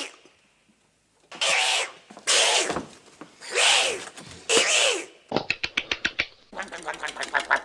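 A man's comic vocal noises: four loud, breathy, hissing outbursts, then a quick run of clicks and a rapid sputtering chatter near the end.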